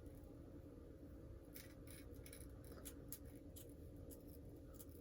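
Scissors snipping through wig lace: a run of faint, short, crisp snips, starting about a second and a half in and coming every half second or so.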